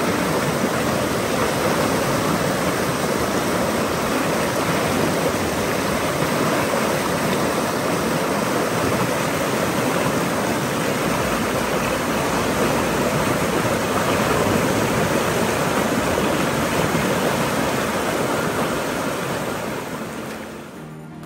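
Squamish River rapids rushing steadily around a boulder and a fallen log, a loud, even whitewater rush that fades out near the end.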